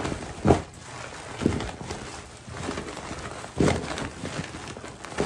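Plastic oven cooking bag rustling and crinkling as floured beef steaks and vegetables are tossed inside it, with a few dull thumps of the contents shifting, the loudest about half a second in.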